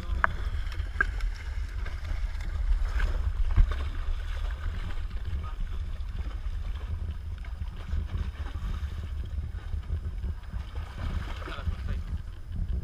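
Steady low rumble of wind on the microphone and sea noise at the side of a fishing boat, with a hooked fish splashing at the surface beside the hull. A few sharp knocks break through, the loudest about three and a half seconds in.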